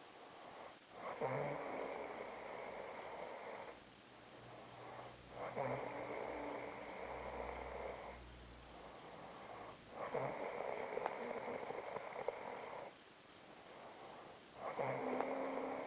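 A woman snoring in her sleep: long, noisy snores about every four and a half seconds, four in all. Each lasts two to three seconds, and the last starts near the end.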